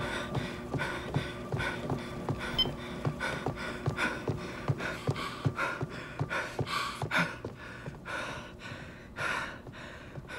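Quick, even footfalls of someone running on a treadmill belt, with heavy panting. The footfalls stop about seven seconds in as the runner stops, and the panting goes on.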